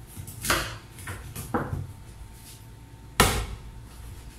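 Large kitchen knife chopping down through a thick talakitok (trevally) steak onto a plastic cutting board: four sharp knocks, the loudest about three seconds in.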